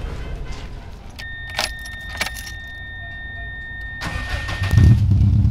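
Keys jangling with a few clicks, then a steady high electronic warning tone from about a second in. Near four seconds the starter cranks, and the 1995 Subaru Impreza WRX STI Type RA's turbocharged flat-four catches and settles into a steady, loud, low idle.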